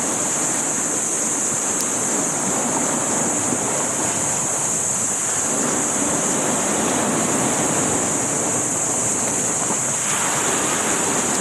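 Steady rushing of sea waves and wind, with a constant high hiss over it.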